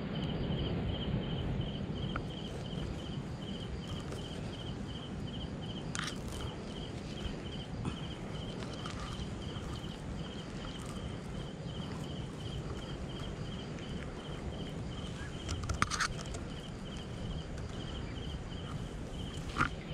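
Cricket chirping steadily in a regular pulse, about twice a second, over a low rustling background, with a few sharp clicks about six and sixteen seconds in.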